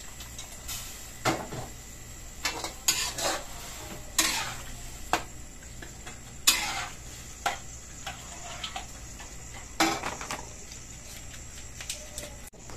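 Metal cooking utensil clanking and scraping against a cooking pan as food is stirred, about a dozen irregular strokes, some ringing briefly.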